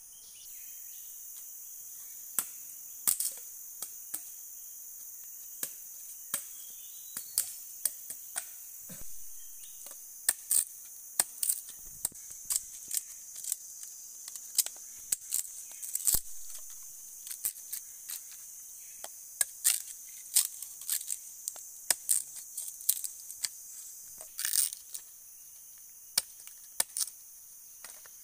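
A machete chopping and splitting thin sticks: irregular sharp cracks, some in quick pairs, over a steady high insect buzz.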